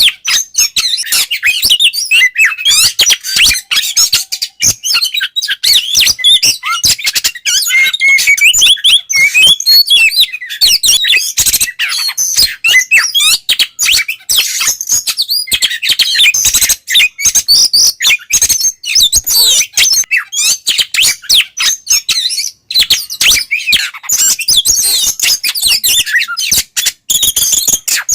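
Oriental magpie-robin singing loudly and without pause: a fast, varied stream of high whistles, chirps and harsh clicks. This is the loud open 'ngeplong' song, the kind played to provoke other magpie-robins into answering.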